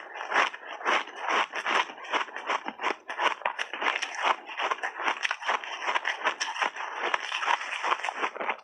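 Frozen mixed-berry ice balls being bitten and chewed close to the microphone: rapid, irregular crunching, several cracks a second.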